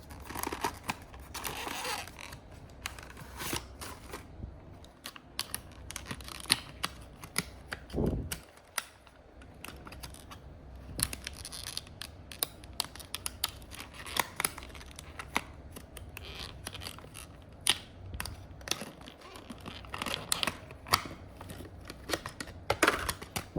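Handling sounds of a model bus and its plastic packaging being unboxed: many small plastic clicks and ticks with bits of rustling, and a dull thump about eight seconds in.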